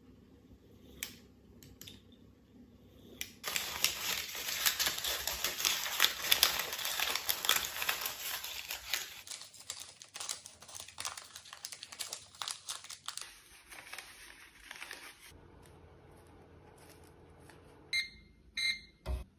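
Several seconds of loud crinkling and rustling that thins out and fades, then three short electronic beeps from a Bosch oven's touch control panel near the end as its timer is set.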